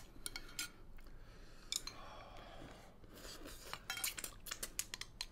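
Metal spoon and chopsticks clinking and scraping against glass bowls while eating rice and soup: scattered light clicks, with a quick run of clinks about four seconds in.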